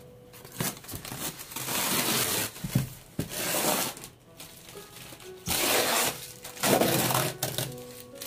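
Clear packing tape being pulled and torn off a polystyrene foam box, in four noisy pulls of about a second each.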